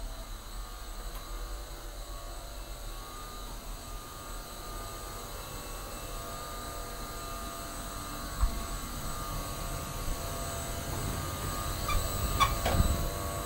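Steady machinery hum with a faint high whine in a yacht's engine-room spaces, growing louder over the second half. A single knock comes about eight seconds in, and a few more knocks near the end.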